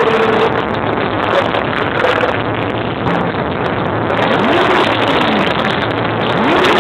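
Massed motorcycle engines running together in a 'motorcycle orchestra', revved up and let fall back twice in the second half.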